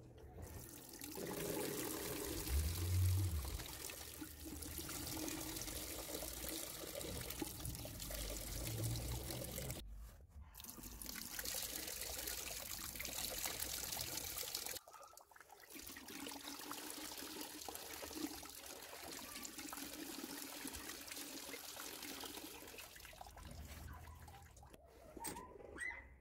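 Water pouring from a glass-disc waterfall basin mixer into a ceramic washbasin, a steady splashing flow that starts about a second in after the lever is lifted. The flow is broken by two short gaps, and there is a low knock about three seconds in.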